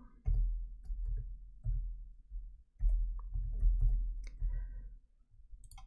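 Computer keyboard being typed on: a quick run of key clicks with dull low thumps, in two bursts, as a feature name is entered.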